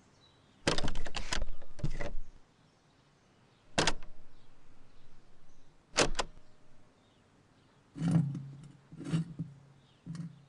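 A cat hissing: a long hiss, two short sharp spits, then hisses with a low growl underneath near the end.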